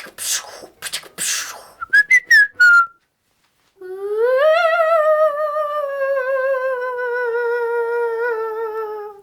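A girl making sound effects with her mouth and voice: several short breathy hissing bursts, a few quick high squeaky chirps, then after a brief pause one long wavering tone that swoops up and slowly sinks for about five seconds.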